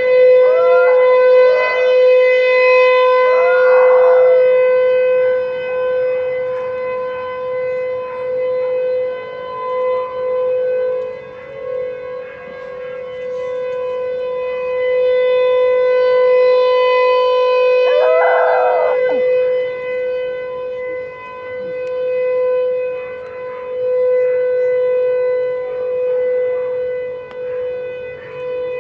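Outdoor tornado warning siren sounding a steady single-pitch tone during its routine weekly test, its loudness swelling and fading over several seconds. Three short higher wails rise and fall over it: about a second in, around four seconds, and about two-thirds of the way through.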